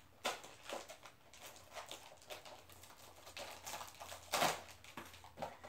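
Faint crinkling and small clicks of clear plastic packaging being handled, with a louder rustle about four seconds in.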